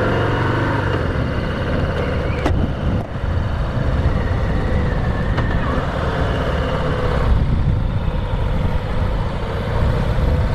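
Harley-Davidson FXDR's Milwaukee-Eight 114 V-twin running under way, with wind and road noise on the microphone and a brief drop in level about three seconds in.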